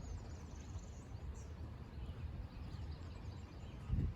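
Outdoor pasture ambience: small birds chirping over a steady low rumble of wind on the microphone, with a brief low thump near the end.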